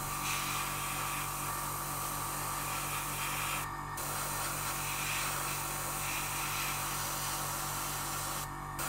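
Airbrush compressor kicking in and running with a steady, rapidly pulsing hum, under the hiss of the airbrush spraying paint. The hiss cuts out briefly twice, about four seconds in and near the end, as the trigger is let off.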